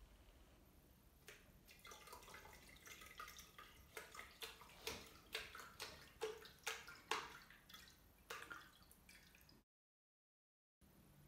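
Wooden pestle pushed down again and again into a mesh filter full of wet blended pulp, pressing out plant milk: a faint, quick run of short wet strokes and drips, several a second, that breaks off into a second of dead silence near the end.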